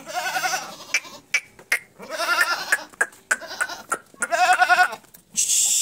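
Barbari goats bleating: three main wavering bleats, each under a second, spaced about two seconds apart, with a shorter call between the second and third. A few sharp clicks fall between the first two bleats, and a brief hiss comes near the end.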